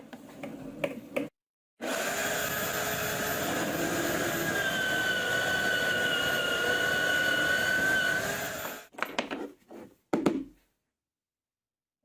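Drill press running as a wide Forstner bit bores into a stack of laminated plywood discs: a steady motor whine over cutting noise that starts about two seconds in and stops after about seven seconds. A few knocks follow as the work is handled.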